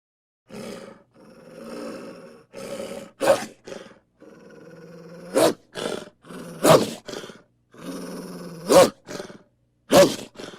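Wolf growling in low, rumbling stretches, broken by about five short, sharp snarling snaps.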